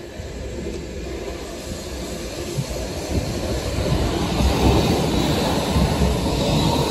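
Končar TMK 2300LT tram passing close by, its wheels rumbling on the rails; the rumble swells about halfway through as the car comes alongside.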